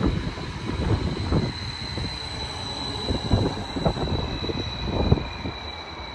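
MTRX electric passenger train (Stadler FLIRT) running along the platform: a steady rumble of wheels on rail, a few sharp knocks, and a steady high electric whine. A second, fainter whine slowly falls in pitch over the last few seconds.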